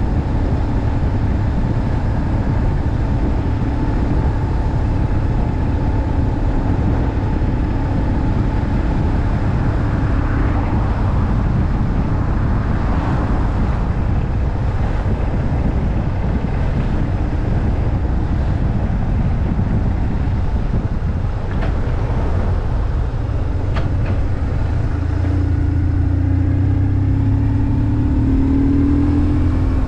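BMW R 1150 R's air-cooled boxer twin running steadily while riding. Near the end the engine note gets louder and climbs slightly in pitch as the bike accelerates.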